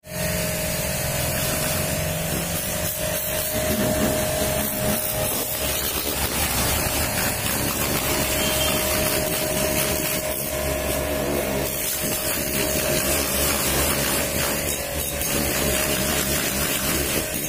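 High-pressure washer jet spraying water onto a car's body and tyres, a constant hiss of spray over the steady hum of the washer's pump motor.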